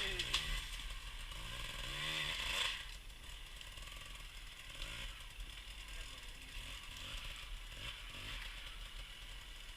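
Off-road motorcycle engine revving up and down in two short bursts in the first three seconds, then running more quietly at low revs.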